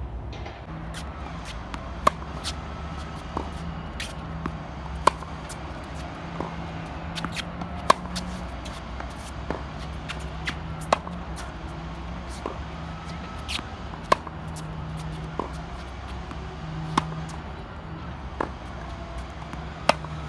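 Tennis rally on a hard court: sharp racket-on-ball pops about every one and a half seconds, a loud one every three seconds or so with fainter ones between, over a steady low hum.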